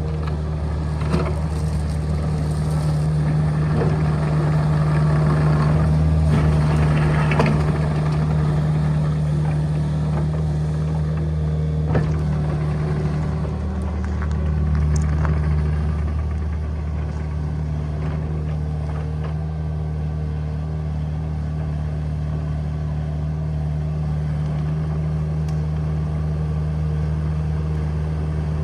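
Engine of a small earthmoving machine running steadily, swelling a little now and then as it works, with a sharp clank about twelve seconds in.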